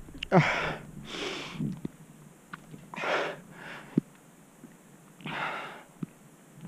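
A person breathing hard: five heavy breaths about one to two seconds apart, the first a voiced, falling sigh and the loudest.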